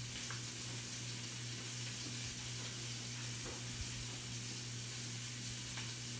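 Daing (brined fish) frying in olive oil in a nonstick pan: a steady sizzle, with a steady low hum underneath.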